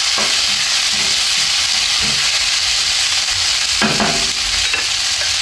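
Eggplant and garlic frying in oil in a hot wok: a steady sizzle as it is stirred, with a few knocks of the stirring utensil against the wok, the clearest about four seconds in.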